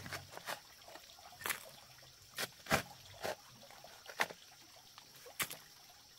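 Water splashing and trickling in short, irregular bursts, about eight in all.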